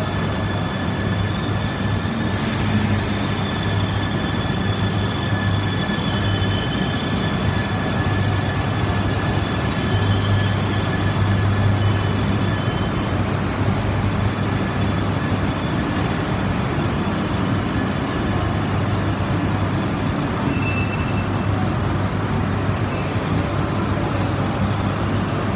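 E3 series Tsubasa shinkansen arriving and slowing along the platform, its cars rolling past with a steady low hum. High whining tones from the braking train fade out about halfway through.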